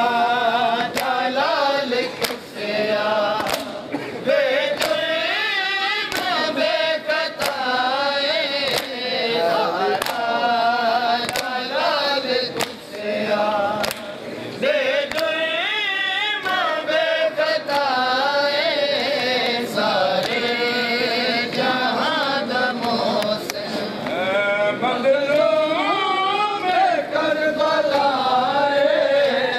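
Male voices chanting a noha, a Shia mourning lament, through a microphone, with sharp slaps of hands striking bare chests (matam) in a steady rhythm.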